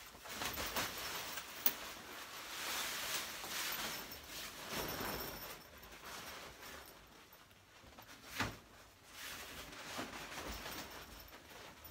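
Rustling and swishing of a pop-up hunting hide's camouflage fabric cover being pulled down over its frame, with a few light knocks and one dull thump about eight seconds in.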